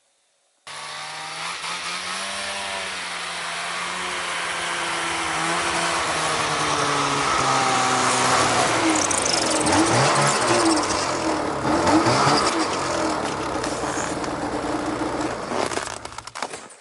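Snowmobile engine running and revving, rising and falling in pitch as it tows a power-auger sled a short way over the snow, then stopping near the end.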